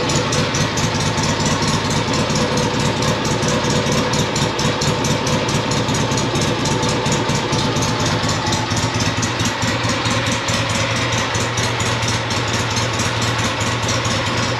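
Meguro K2's 500 cc air-cooled parallel-twin engine idling steadily with an even, rhythmic exhaust beat.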